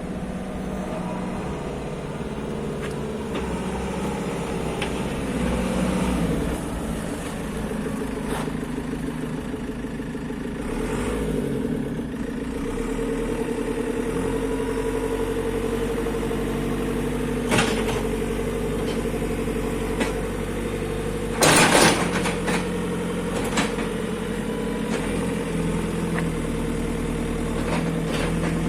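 JCB 3CX backhoe loader's four-cylinder diesel engine running, its speed shifting a few times. A few sharp clicks and one short, loud burst of noise about two-thirds of the way through stand out over it.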